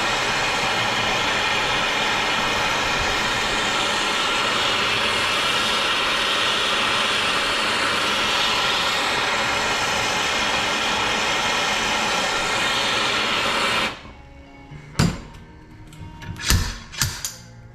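Steady, loud rushing noise from shop work on the motorcycle frame, which cuts off suddenly near the end. It is followed by a few sharp knocks.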